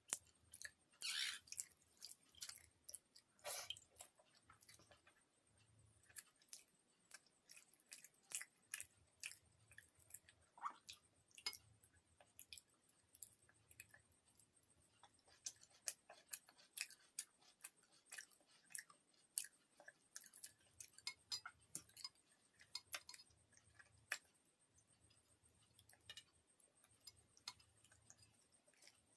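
Faint close-up sounds of a person chewing and eating: irregular short clicks and mouth noises coming every fraction of a second to a second or so.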